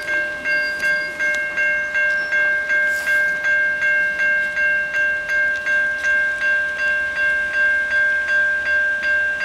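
Railway level-crossing warning bell ringing in a steady, even rhythm of about three strokes a second, each stroke ringing on into the next.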